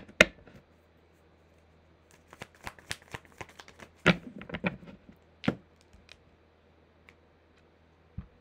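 A deck of oracle cards shuffled by hand, the cards slapping and clicking together in quick flurries, busiest about four to five and a half seconds in, then thinning to a few taps. A soft low knock comes near the end.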